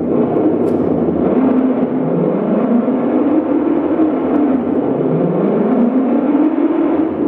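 Live improvised noise music: a loud, dense rumbling drone with tones that slide slowly up and down again and again.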